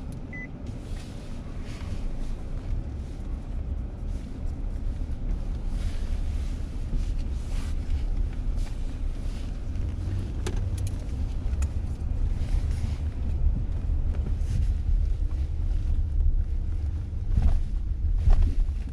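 Cabin noise of a 2019 Mazda CX-9 on the move: a steady low road and tyre rumble, with a few faint short knocks, more of them near the end.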